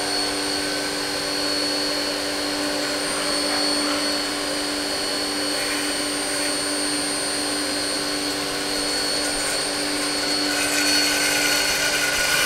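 Haas TM-2P CNC toolroom mill running a program with no part in it: a steady spindle whine over the hiss of the coolant flow, the spindle lightly loaded. About ten seconds in, a higher tone joins and the sound gets brighter.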